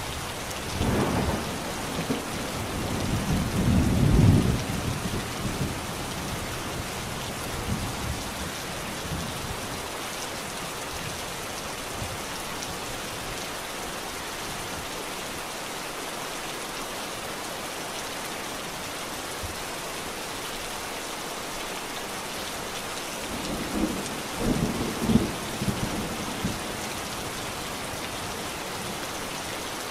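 Steady rain falling, with two rolls of thunder. The first rumbles about a second in and swells for a few seconds. The second comes shortly before the end.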